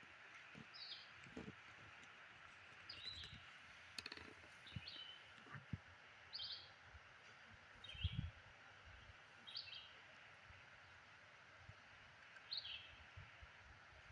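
Faint outdoor ambience: a bird repeating a short chirped call every second or two over a steady high hiss, with a few soft low thumps.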